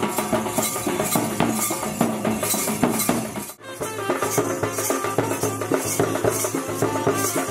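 Nepali panche baja wedding band music: drums and cymbals on a steady beat under a pitched melody. It breaks off for a moment about three and a half seconds in, then starts again.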